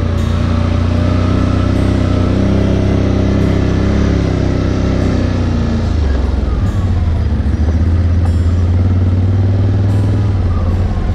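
ATV engine running under way, a steady low drone whose note shifts about halfway through and then holds.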